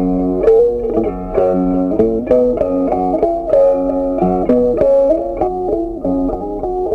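Background music: a plucked guitar tune, one note after another in an even rhythm.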